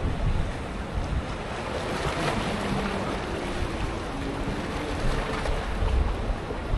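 Wind buffeting the microphone over the rush of sea water, a steady noisy haze heavy in the low end, with a few faint steady tones in the middle.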